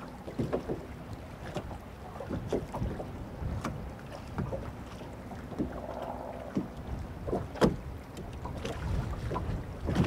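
Wind-driven waves slapping irregularly against the hull of a bass boat, over a steady low rumble of wind on the microphone.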